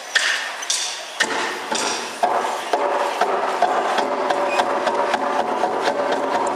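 Percussion playing for a stage dance: a few separate ringing strikes, then from about a second in a fast, continuous clatter of strikes.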